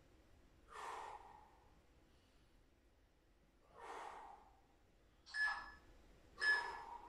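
Two sharp breaths from a man straining in a side plank, then two short electronic beeps from a workout timer near the end, a countdown marking the end of the timed interval.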